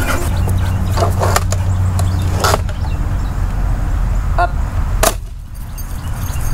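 Sharp clicks and snaps from a hand-held toy ball launcher. The loudest, about five seconds in, is the launcher firing the ball for the dog. Under them runs a steady low rumble on the microphone.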